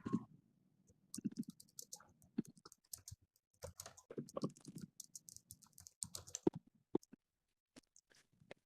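Irregular clicking and tapping, like typing on a computer keyboard, in short flurries with gaps between.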